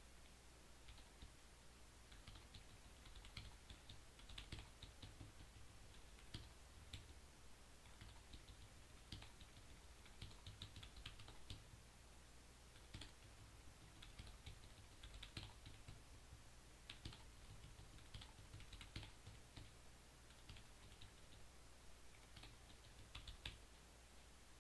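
Faint typing on a computer keyboard: irregular light key clicks, some single and some in quick runs, over a low steady electrical hum.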